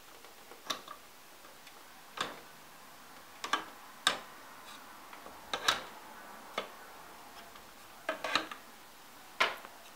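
A plastic fashion doll's feet tapping step by step down a plastic dollhouse staircase: light, sharp taps at an uneven pace of about one a second, a few in quick pairs.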